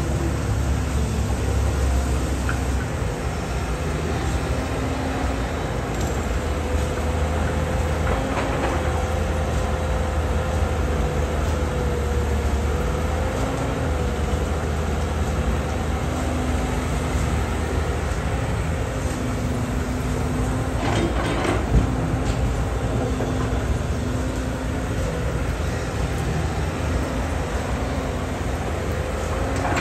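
Caterpillar hydraulic excavator running steadily under load, its diesel engine rumbling with a wavering hydraulic whine as it digs soil and swings it into a dump truck. A single sharp knock stands out about two-thirds of the way through.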